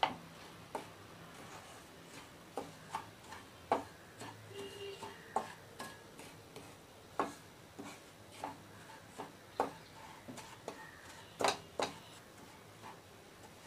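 Wooden spatula stirring a dry, crumbly mixture of milk powder roasting in ghee in a nonstick pan, nearly golden brown. It makes a string of irregular light knocks and scrapes against the pan, roughly one or two a second.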